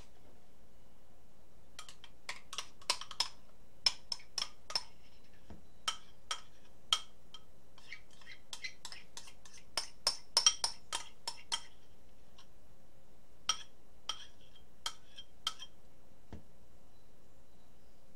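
Metal spoon clinking and scraping against a ceramic bowl and a stainless steel mixing bowl as melted cream cheese is spooned out: a long irregular run of light, ringing clinks and taps, busiest about ten seconds in.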